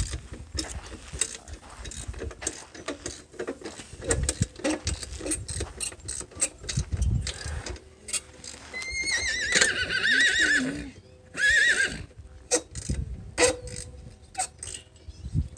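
Irregular metal clicks and knocks of hand tools as an ATV's rear wheel is worked on. About nine seconds in, a horse whinnies loudly in a long wavering call, then gives a short second call.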